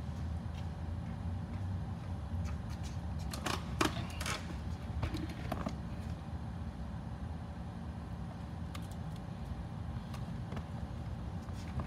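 Steady low hum and rumble, with a cluster of sharp clicks and knocks about three and a half to five and a half seconds in, and a few fainter clicks near the end.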